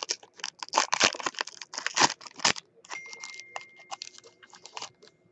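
Foil trading-card pack wrapper being torn open and crinkled by hand. There are dense crackles for the first two and a half seconds, then sparser ones as the wrapper is peeled off the cards.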